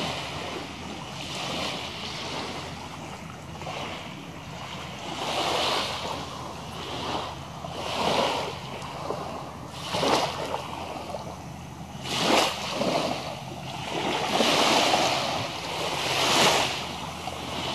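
Small waves breaking and washing up on a sand-and-pebble beach, a fresh wash every one to two seconds, a few of them sharper than the rest.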